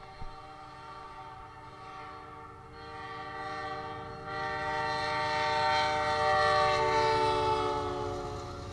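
Freight locomotive air horn sounding one long, held chord of several notes, growing louder as the train approaches and dropping slightly in pitch before cutting off, over the low rumble of the train.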